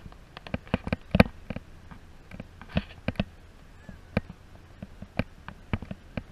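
Irregular sharp clicks and knocks, several a second at times, the loudest about a second in, from rattling on a moving chairlift as the chair rides up the cable.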